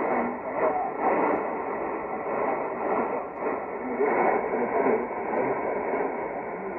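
Shortwave AM broadcast of Voice of Indonesia on 3325 kHz, played through a portable receiver's loudspeaker in narrow synchronous mode: a voice partly buried in steady hiss and static, with the sound cut off above about 2.5 kHz.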